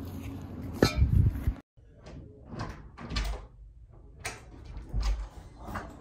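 A sharp knock with a low rumble about a second in, then a series of short clicks and dull thuds from a dorm room door's latch and handle as the door is worked and swings open.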